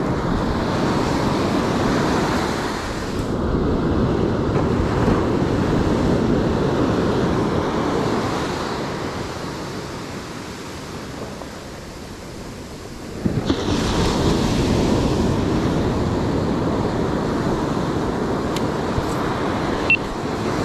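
Ocean surf washing up a sandy beach, with wind buffeting the microphone. The wash dies down for a few seconds, then surges back abruptly about two-thirds of the way through. A few light clicks come near the end.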